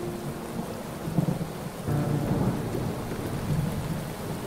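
Monsoon rain falling steadily, with low rumbles of thunder swelling a few times underneath.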